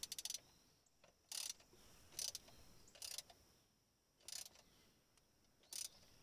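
Ratchet wrench clicking faintly in six short bursts about a second apart, one for each back-swing, as a brass flush fitting is threaded into the exhaust.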